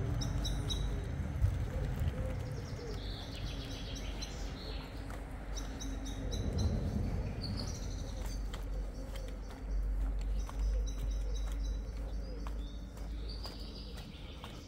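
Birds chirping in short repeated series, over a steady low city hum with scattered faint clicks.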